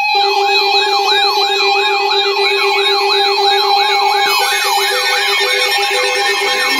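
Weather alert radio sounding its siren-like alarm for an incoming warning. A warbling tone sweeps up and down about two and a half times a second over a steady tone, and a second, beeping tone joins about four seconds in.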